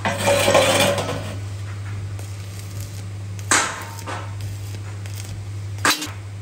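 Stick arc welding on steel: the arc crackles through the first second, with brief sharp crackles again about three and a half and six seconds in, over a steady low hum.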